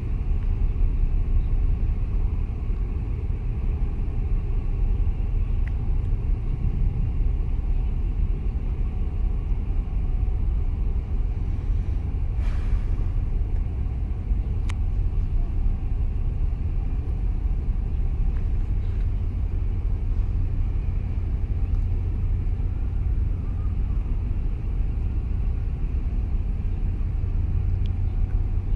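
Wind buffeting the microphone: a steady low rumble without any pitch.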